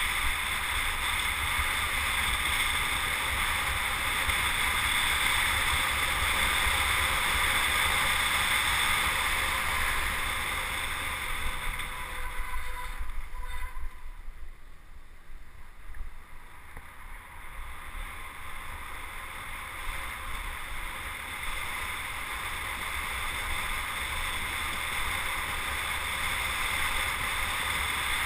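Wind rushing over the microphone of a camera on a bicycle descending a mountain road at speed. It drops away for several seconds in the middle as the bike slows through a hairpin bend, then builds again.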